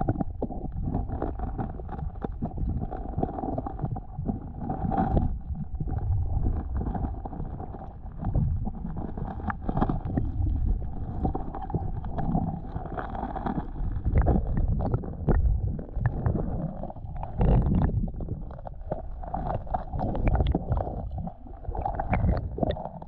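Muffled underwater rumble of flowing creek water, heard through a submerged microphone, with irregular low thumps throughout.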